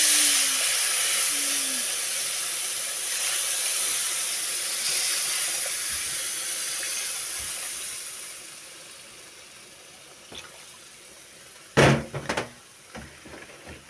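Hot sugar syrup poured into butter-toasted semolina in a hot pan, hissing and sizzling loudly as it hits, then dying down over several seconds to a quieter bubbling hiss. A few brief knocks come about twelve seconds in.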